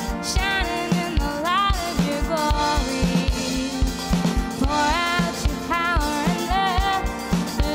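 A woman singing a worship song over keyboard accompaniment, with a drum kit keeping a steady beat of about two kick-drum thumps a second.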